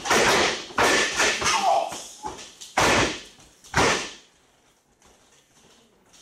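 Wrestlers' bodies slamming onto the ring canvas and into each other: a quick run of loud thuds in the first second and a half, then two more single slams about three and four seconds in.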